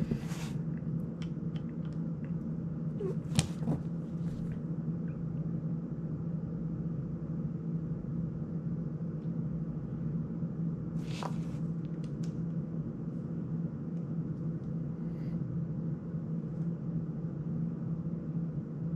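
A few small, sharp clicks and taps of a precision screwdriver and drone frame parts being handled during disassembly, the clearest about a third of the way in and one a little past halfway, over a steady low hum.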